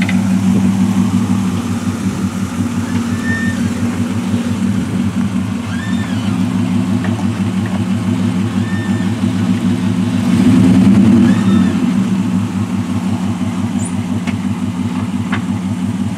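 Lifted square-body pickup truck's engine running at a low, steady idle while it backs a boat trailer down to the water, rising briefly about ten seconds in. Short bird whistles sound over it a few times.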